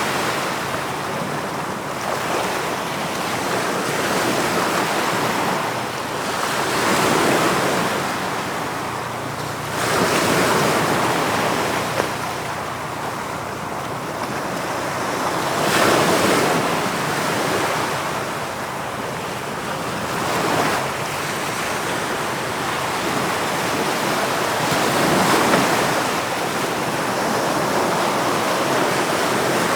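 Sea waves breaking and washing in, a continuous rush that swells with each wave every few seconds.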